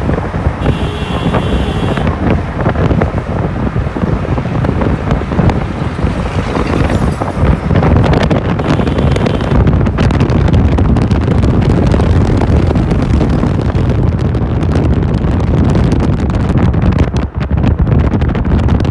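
Heavy wind rumbling on the microphone over road traffic noise. A brief high-pitched tone sounds about a second in and again about nine seconds in.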